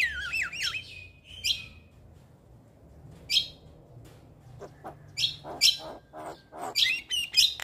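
Javan myna singing: whistled, warbling pitch glides at the start, then after a short pause a run of short, harsh chattering calls that come faster toward the end.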